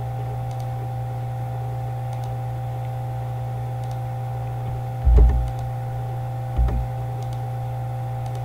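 Steady low electrical hum with faint computer-mouse clicks scattered through it, and two dull low thumps about five and six and a half seconds in.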